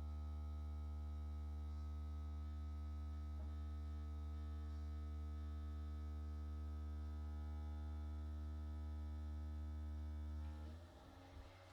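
Keurig K-Mini single-serve coffee maker running with a steady electrical hum, which cuts off suddenly near the end. There is a faint click about three and a half seconds in.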